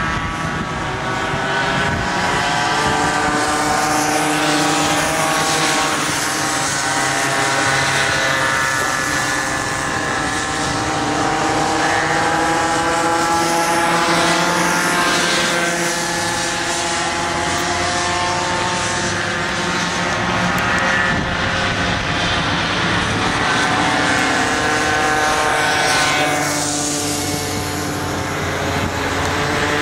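Several small two-stroke kid kart engines buzzing as the karts race around the track, their pitch wavering up and down as the drivers go on and off the throttle through the corners.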